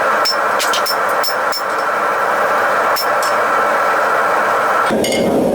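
Gas forge running with a loud, steady roar. A quick run of sharp, ringing knocks comes in the first two seconds and another about three seconds in. Near the end the roar turns deeper.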